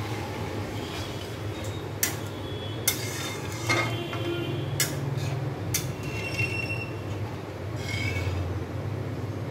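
Metal spatula stirring and scraping in a stainless-steel kadai of thin mustard gravy, with several sharp clinks against the pan and a few short high squeaks of metal on metal, over a steady low hum.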